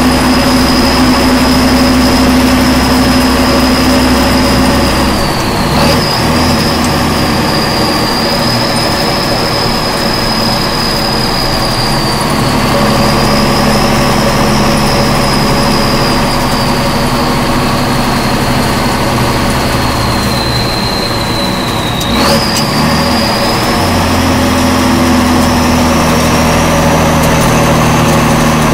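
M35A2 2½-ton army truck's turbocharged inline-six multifuel engine running under way, heard from the cab, with a high whine over the low engine note. Twice the whine sags and picks back up, each time with a short knock as the engine note changes.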